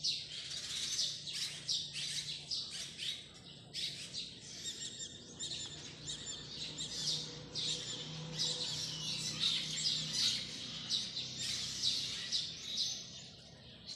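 Many birds chirping at once, a dense chorus of short, quick calls, with a faint steady low hum underneath.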